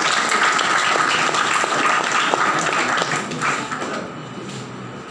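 Audience applauding, many hands clapping at once; the applause dies away about four seconds in.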